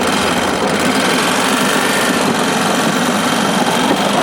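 Motorcycle engine running steadily as it powers a rail trolley.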